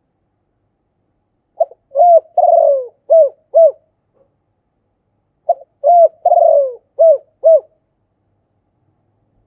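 Spotted dove singing its cooing song twice, about four seconds apart. Each phrase is a short lead-in note, then a string of coos with a longer, rolling coo in the middle.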